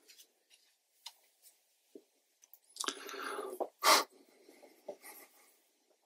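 A watercolour brush scrubbing and scraping in the mixing wells of a metal watercolour palette: a rough rubbing about three seconds in and a short, sharper scrape just after, with a few faint ticks around them.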